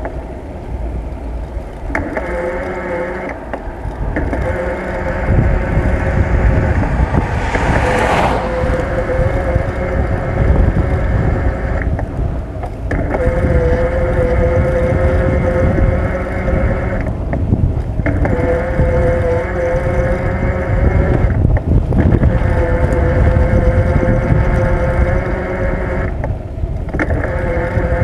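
Bicycle ride heard from a bike-mounted camera: a steady low wind rumble on the microphone, with a steady mechanical whine from the bike that cuts out for about a second several times. There is a brief hiss about eight seconds in.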